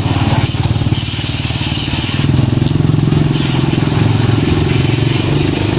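Coin-operated pressure washer running steadily, its pump giving a low hum with a fast pulsing beat, while the high-pressure water jet hisses as it blasts mud off a car.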